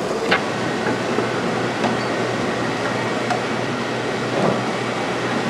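Steady industrial machinery noise with a constant low hum, broken by a few sharp knocks and clanks.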